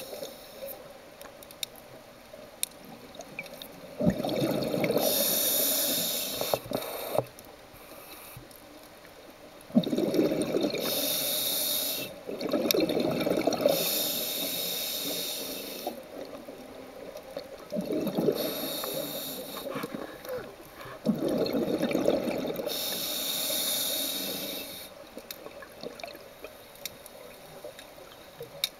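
Scuba regulator breathing underwater: each breath brings a hiss and a rush of bubbling air. The breaths repeat in a slow rhythm every several seconds, with quieter gaps between them.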